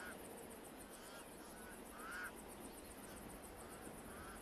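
Pied crows calling faintly: a handful of short, rising calls scattered over a few seconds, over a faint, fast high ticking.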